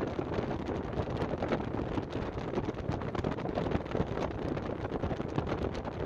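Wind buffeting the microphone of a moving vehicle: a steady rushing noise with a constant rapid flutter, mixed with the vehicle's running noise.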